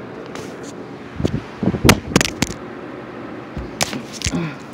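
Handling noise from the hand-held recording device: a scattered run of sharp knocks and clicks, about seven, over a faint rustle.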